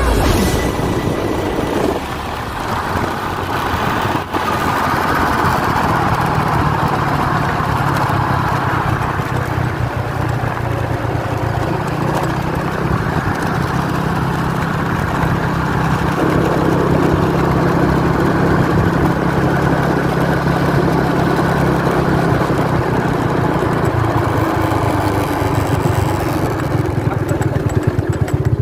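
A vehicle engine running steadily, with a continuous low hum and a noisy rush over it.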